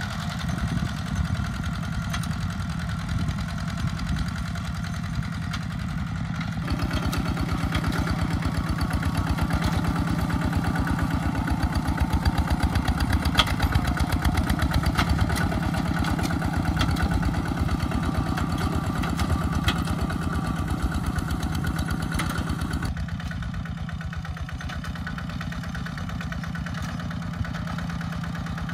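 Walking tractor's single-cylinder diesel engine running steadily with a rapid, even chug while it pulls a disc plough through the soil.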